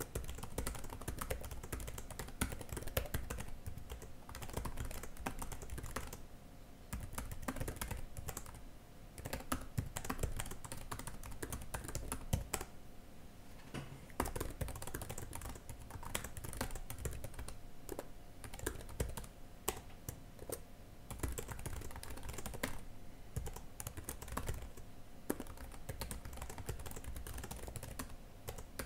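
Typing on a computer keyboard: runs of quick key clicks broken by short pauses every few seconds.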